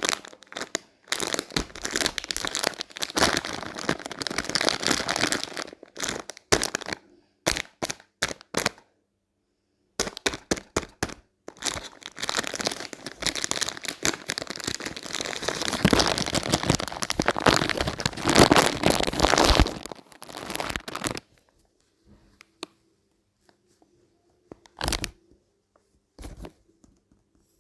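Packaging being torn open and crinkled by hand, in two long spells of crackling and rustling with sharp snaps, then a couple of short rustles near the end.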